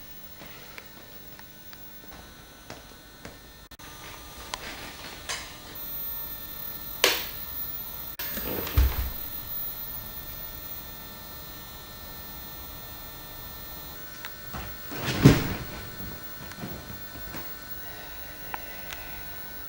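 A steady low hum with scattered knocks and bumps. There is a thud about nine seconds in and a louder knock about fifteen seconds in, and a thin high whine runs through the middle.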